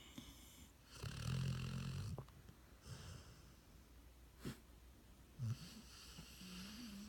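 Dog snoring: a long snore about a second in, a shorter one around three seconds, and a thin whistling tone near the end.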